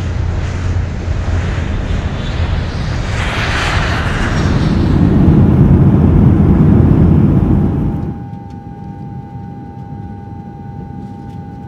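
Jet airliner noise as heard from inside the cabin of a Boeing 737: a steady rush that swells loud around the middle, then drops from about eight seconds in to a quieter steady cabin hum with a faint steady tone.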